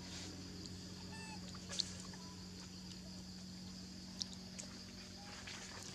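Forest ambience with a steady low hum, a short pitched animal call about a second in, and a few sharp high chirps.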